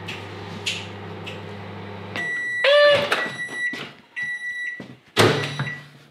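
Microwave oven running with a low hum that stops about two seconds in. Its beeper then sounds several times to signal that heating is done, amid clicks and knocks as the door is opened and the bowl taken out. A brief squeal that rises and falls in pitch, the loudest sound here, comes just after the hum stops.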